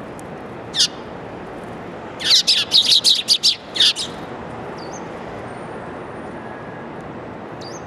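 Eurasian tree sparrows chirping: a single chirp about a second in, then a quick run of about eight loud chirps over the next two seconds, over steady background noise.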